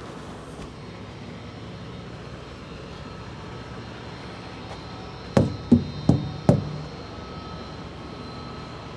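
Steady low hum of an idling diesel truck engine, with four quick hard knocks a little past the middle, about three a second.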